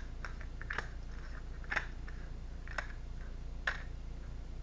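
Tarot cards being flipped and laid down on a table, four sharp snaps about a second apart.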